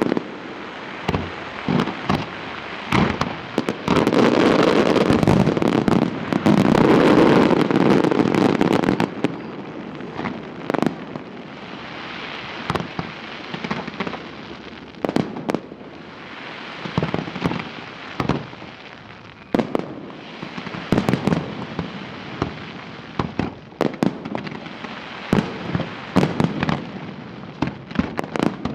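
Fireworks display: shells bursting with a rapid series of sharp bangs and crackling. The bursts are densest and loudest in a barrage a few seconds in, then thin to scattered bangs and patches of crackle.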